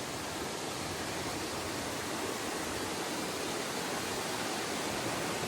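Small mountain stream spilling over a little cascade: a steady rush of water that grows slightly louder.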